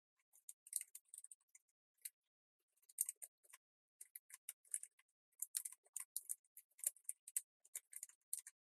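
Faint computer keyboard typing: irregular key clicks in quick runs with short pauses, stopping near the end.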